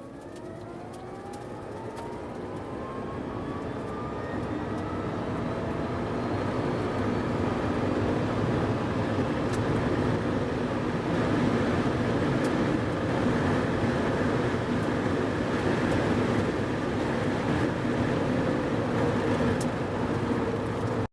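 Rimac Nevera electric hypercar accelerating hard in reverse. Its electric motors' whine glides up in pitch and levels off, with tyre and wind noise building over the first several seconds. The sound cuts off suddenly at the end.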